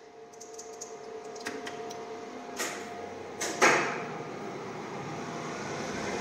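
Original Schindler geared traction lift machine (electric motor and gearbox) starting up: a steady whine and a few sharp clicks, then a sharp clunk about three and a half seconds in. After the clunk the machine settles into a steady running hum that slowly grows louder.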